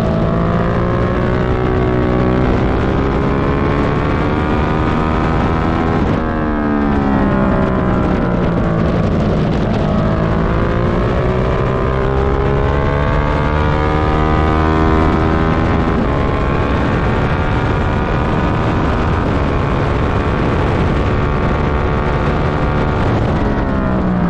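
1999 Suzuki SV650's V-twin engine at race pace, its pitch climbing and dropping again several times as the bike accelerates, shifts and rolls off through the corners, with a sharp drop about six seconds in. Wind rush on the microphone runs under it.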